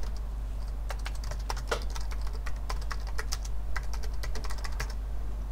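Typing on a computer keyboard: a quick, irregular run of key clicks as a phrase is typed out.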